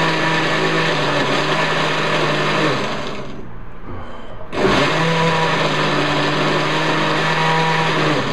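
Countertop blender motor running on its ice-crush setting, chopping leftover french fries with milk and butter. It runs in two pulses: it stops about three seconds in and starts again about a second and a half later.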